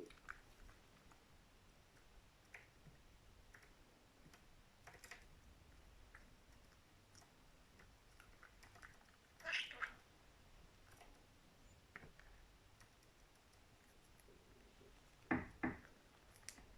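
A cat and a budgie eating: faint, scattered clicks and nibbling sounds, with a short louder sound about ten seconds in and two more close together near the end.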